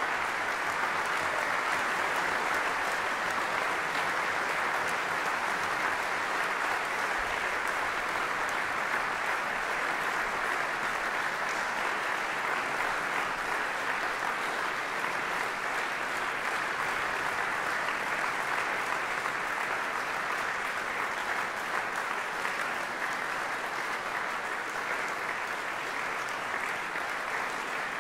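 An audience applauding: dense, even clapping that eases off slightly toward the end.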